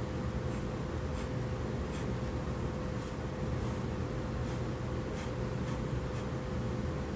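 Pen scratching across paper in short, irregular strokes as a comic page is inked, over a steady low background hum.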